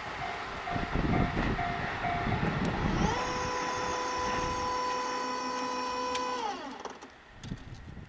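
Level-crossing warning bell ringing in a fast on-off pattern over the fading rumble of the departing train, stopping about two seconds in. About three seconds in a crossing-gate motor whines up in pitch, runs steadily for about three seconds, then winds down and stops as the barrier finishes moving.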